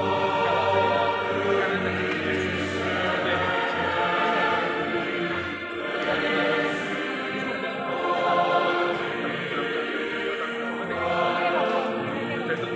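Church choir singing in harmony, in long held phrases that swell and ease off.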